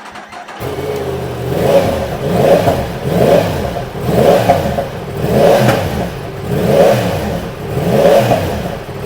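Yamaha MT-10SP's crossplane inline-four comes to life about half a second in and is blipped repeatedly, roughly once a second, through the stock exhaust with its catalytic converter in place and the exhaust valve held open. It sounds a little bit throatier.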